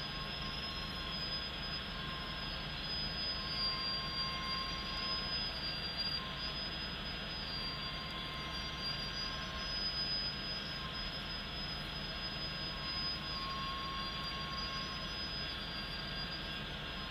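Loaded freight train rolling at low speed past and away from the crossing, heard from inside a car. A steady rumble runs under a thin, high wheel squeal that wavers slightly in pitch throughout.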